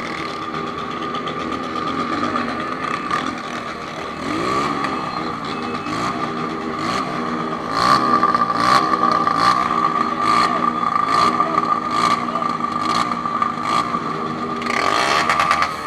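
Honda CB1000's inline-four engine running under way, its note rising and falling with the throttle, over a steady high whine.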